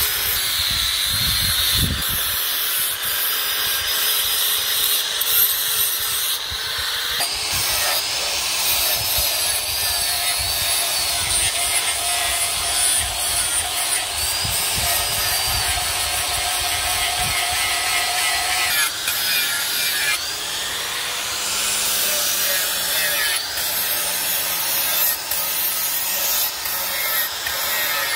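Handheld angle grinder with an abrasive disc grinding the steel of a knife blade: a steady high hiss with a whine that wavers as the disc is pressed on. The sound shifts in character around 7 and 19 seconds in.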